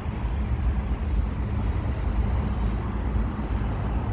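Freight cars of a slow-moving train rolling past: a steady low rumble of wheels on rail.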